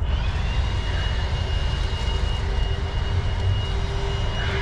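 Steady low engine rumble with a thin, steady high whine through most of it, typical of a passing aircraft or road traffic.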